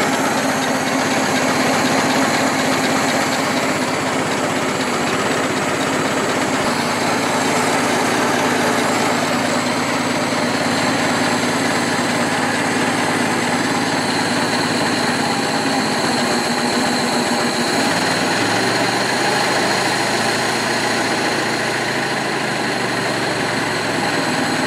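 Overhauled Ford Model T four-cylinder flathead engine running steadily at a fast idle, quiet now that the timing-gear clank is cured.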